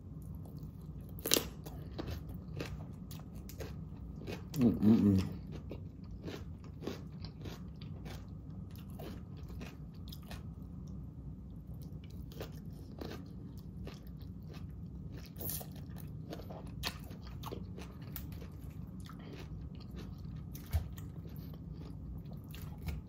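Close-up chewing of raw salad: crisp crunches and wet mouth clicks as lettuce, cabbage and vegetables are bitten and chewed, with now and then the fork clinking against the glass bowl. About five seconds in there is a short hummed "mm".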